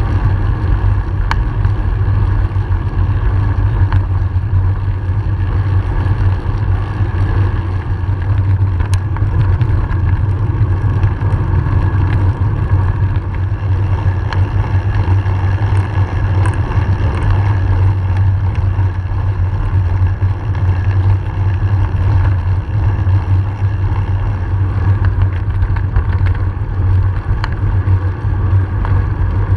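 Steady low rumble of wind and road vibration on a camera moving along with road cyclists.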